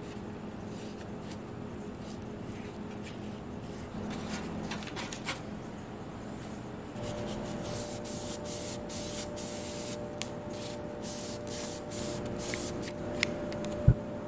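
Paper towel rustling and rubbing as it wipes oil onto a pair of kitchen scissors, over a low steady hum. Near the end comes one sharp snip as the scissors close into the soft bread dough.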